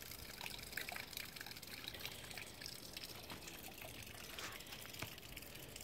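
Faint trickling water at a small backyard fish pond, with a few light clicks scattered through it.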